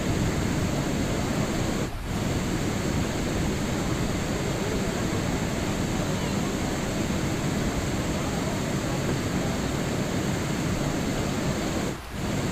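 Steady, dense rain noise like white noise, even throughout, with two brief dips in level: about two seconds in and near the end.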